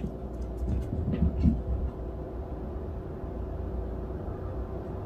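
A cat chewing barley-sprout cat grass: a brief run of faint crunching clicks and soft bumps in the first couple of seconds, over a steady low rumble.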